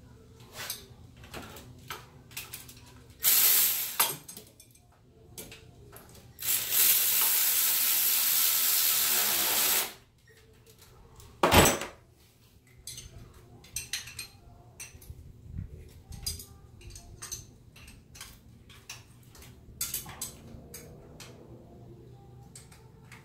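Wrench and nuts clinking in short scattered clicks as new intake-manifold studs are threaded into a Honda D17 cylinder head with the double-nut trick. A short burst of loud hissing comes a few seconds in, then a steady hiss of about three seconds, and a single sharp knock soon after.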